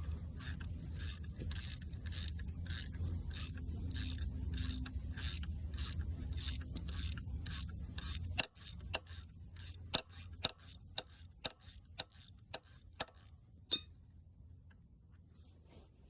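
Ratchet wrench clicking in quick repeated strokes as it backs out a cam gear bolt, about two to three clicks a second. A low hum underneath stops about halfway through, and the clicks then come sharper and louder before a short rattle near the end.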